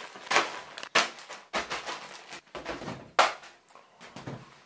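Plastic bags of rubber bands being handled and set down on a wooden table: a dozen or so irregular crinkles and knocks.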